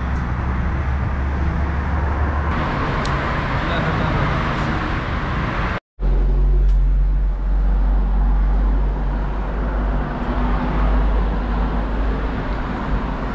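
Busy street ambience: steady traffic noise from passing vehicles with voices in the background, broken by a brief dropout about six seconds in.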